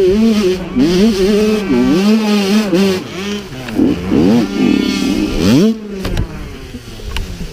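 Dirt bike engine revving hard in repeated bursts, pitch rising and falling with the throttle while climbing a steep slope. About six seconds in it gives one sharp rev and then drops to a lower, weaker running as the bike tips over, with a few knocks.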